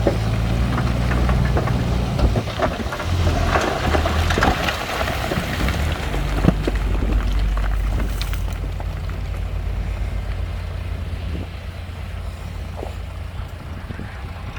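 Heavy diesel construction machinery running steadily, with stone clattering and rattling as it tumbles and is pushed. The clatter thins out after about eight seconds, leaving the engine.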